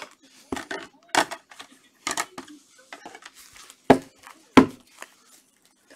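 Hard plastic card holders clacking against each other and the table as they are handled and stacked: a string of sharp, irregular clacks, the loudest two about four and four and a half seconds in.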